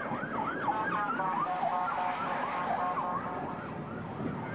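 Emergency vehicle siren yelping in fast rising and falling sweeps, which about a second in turn into a choppier, stepped warble.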